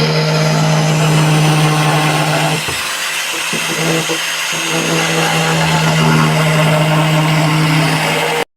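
Electric power tool running steadily under load with a strong motor hum, easing briefly about three seconds in and then picking up again.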